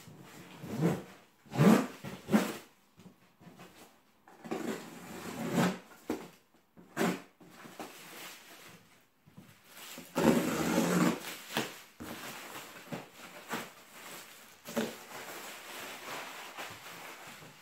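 Black plastic wrapping and packing tape being torn and pulled off a parcel: irregular rustling and ripping in short bursts, with a longer, louder rip about ten seconds in.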